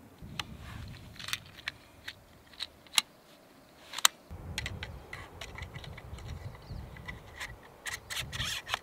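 Hands handling .25-calibre air rifle pellets and the rifle's action: a string of small sharp metallic clicks and rubbing, the loudest two clicks about three and four seconds in and a quick run of clicks near the end. A low rumble sits under the second half.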